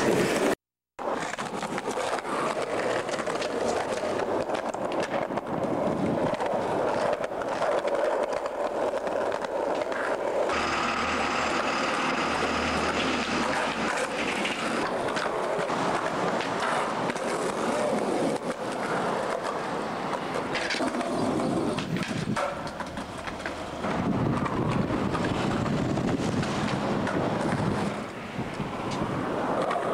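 Skateboard wheels rolling over concrete pavement, with clacks of the board popping and landing during street tricks.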